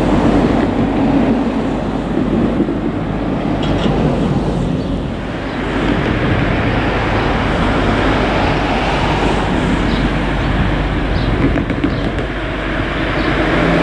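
Forklift running steadily while unloading a sliding-wall railway wagon: a continuous mechanical rumble with a few light knocks.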